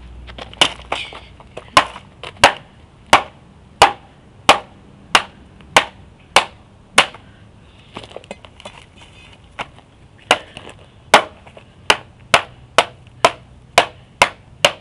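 Repeated sharp knocks, each a hard strike, about one and a half a second, pausing for a few seconds midway and then resuming at a slightly quicker pace.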